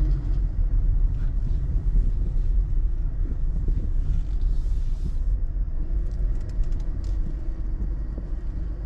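A car driving, heard as a steady low rumble of engine and road noise.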